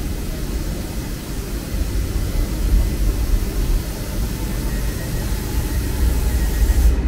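Railway station platform ambience: a steady low rumble with hiss from the standing electric trains and the covered platform. The high hiss cuts off suddenly near the end.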